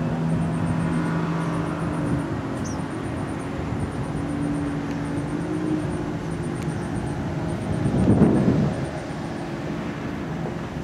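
Outdoor ambience with a low mechanical hum made of several steady tones that shift in pitch partway through, and a louder rush about eight seconds in.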